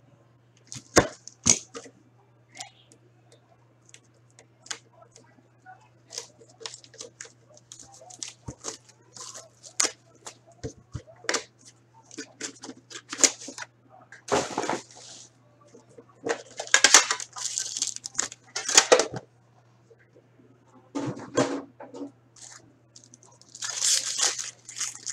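Plastic shrink wrap on a hockey card box being slit with a small blade and pulled off, then the box and a card pack wrapper handled and torn open. It sounds as a string of small clicks and crackles, with louder bursts of crinkling plastic several times in the second half.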